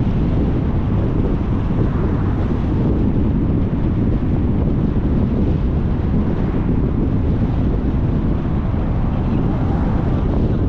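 Steady low rumble of wind buffeting the microphone, mixed with tyre and road noise from a car driving along a city street.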